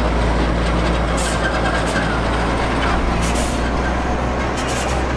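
A heavy vehicle's engine running close by, a steady low rumble, with a few short hisses.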